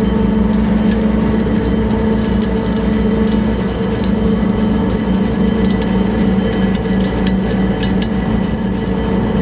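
Ferry's engine running at a steady pace: an even, loud drone with a constant hum. A few faint clicks come in near the end.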